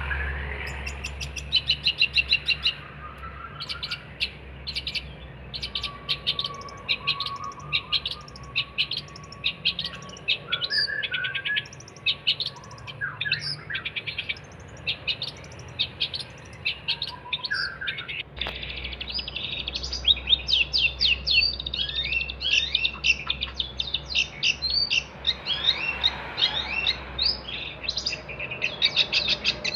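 Long-tailed shrike (cendet) singing energetically: a fast, unbroken run of sharp, high chirps and short varied notes, with a thin held note partway through. A low hum runs faintly beneath.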